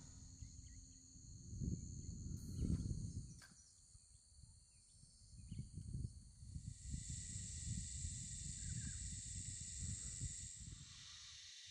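Insects droning in a steady, high-pitched chorus that grows louder from about seven seconds in and drops back near the end, over a low, uneven rumble.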